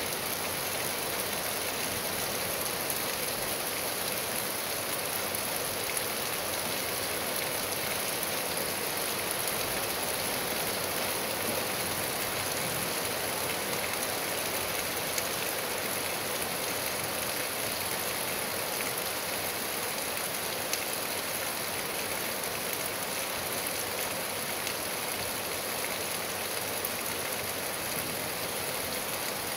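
Steady rain falling on trees and a lawn: an even hiss with a few sharper single drop ticks.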